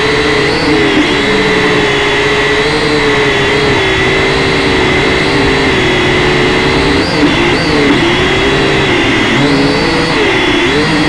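Quadcopter's electric motors and propellers, heard up close from the aircraft itself: a steady buzzing whine. The pitch wavers up and down as the motor speed changes, dipping and rising a few times in the second half.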